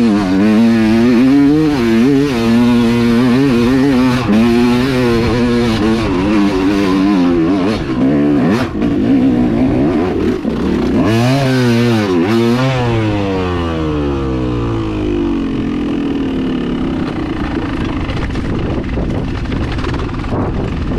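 Dirt bike engine revving hard and unsteadily as the bike climbs a steep dirt hill, the revs rising and dropping with the throttle. About halfway through it revs up twice more, then the pitch falls away steadily and for the last several seconds the engine runs low under a steady rush of wind as the bike rolls downhill.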